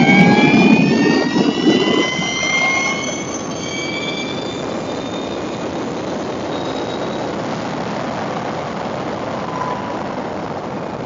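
Energica EGO RS electric motorcycle's motor whine climbing in pitch under full acceleration, with a loud rush of wind and road noise; after about two seconds the whine levels off and fades as the throttle comes off, leaving a steady rush of wind and tyre noise.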